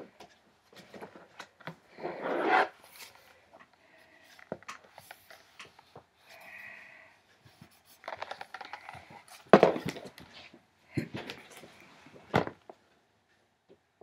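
Pages of a large book being turned and the book handled: paper rustling and flapping with clicks, and several louder thumps over the second half.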